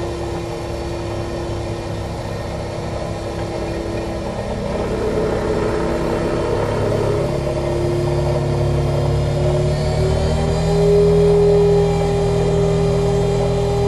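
Excavator-mounted vibro hammer running on a steel pile, driven by the excavator's engine and hydraulics: a steady mechanical drone with a held whine that rises a little in pitch and grows louder about ten seconds in.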